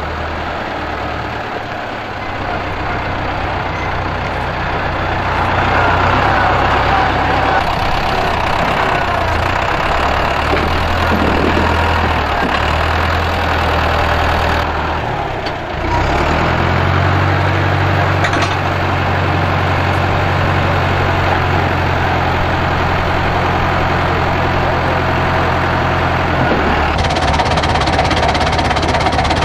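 Tractor engine running steadily as the rebuilt tractor loader drives and lifts a load of poles, its pitch shifting a few times, with a brief drop in level about halfway through.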